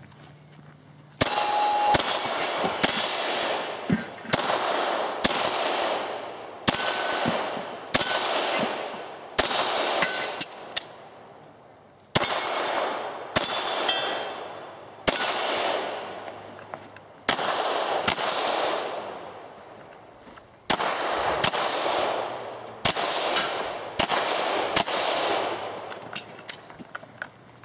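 Handgun fired in a long string during a practical shooting stage, the first shot about a second in, the shots mostly in quick pairs with short pauses between groups. Each shot is followed by a ringing echo that fades away.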